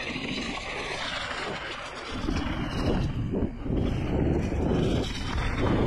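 Riding noise from an electric mountain bike on a dirt trail: wind on the camera microphone and tyres rolling over the ground, growing louder about two seconds in.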